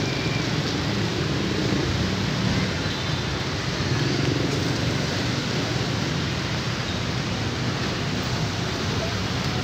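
D12E diesel-electric locomotive running steadily as it approaches along the street track, a low rumble under a steady hiss.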